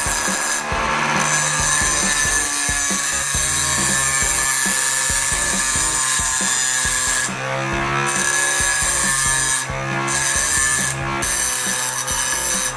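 Homemade table saw driven by an 18 V 775 DC motor cutting wood, its blade hissing steadily through the cut with a few brief dips as it eases in and out of the wood.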